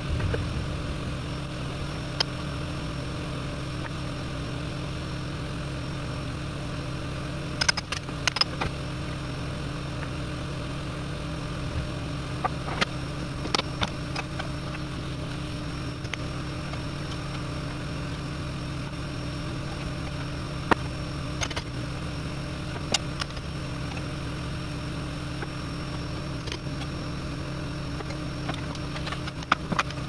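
Portable generator engine running steadily, with sharp clicks and knocks now and then as weatherboards are pried off a wall.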